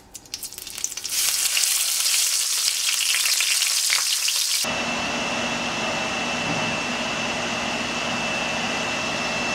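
Whole crappie sizzling in hot oil in a stainless frying pan, the frying starting about a second in as the fish goes into the oil. About halfway through the sound cuts to a steadier, softer hiss with a thin high whine running through it.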